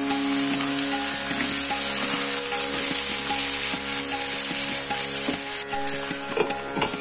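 Sliced brinjal sizzling in oil in a nonstick pan while a spatula stirs and scrapes it, over soft background music. About five and a half seconds in, a glass lid goes onto the pan with a few clinks and the sizzle drops.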